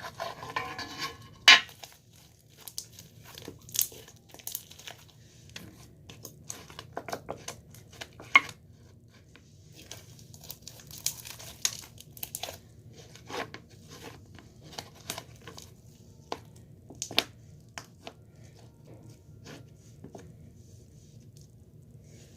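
Irregular crinkling and crackling handling noises, close by, with scattered sharp clicks. The loudest come about a second and a half in and again around 8, 12 and 17 seconds.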